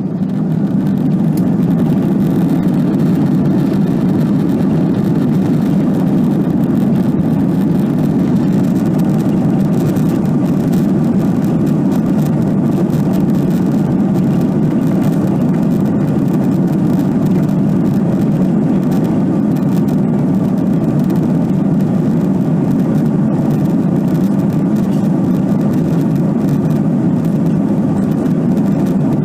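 Airbus A330-202 jet engines running at takeoff power, heard from inside the cabin as a steady low-pitched rumble that builds over the first second and then holds through the takeoff roll.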